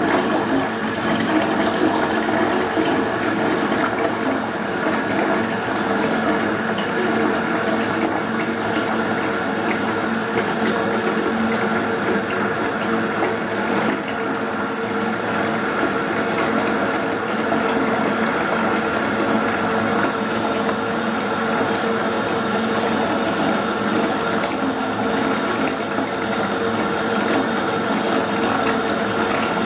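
Water running steadily in a bathtub: a continuous, unbroken rushing.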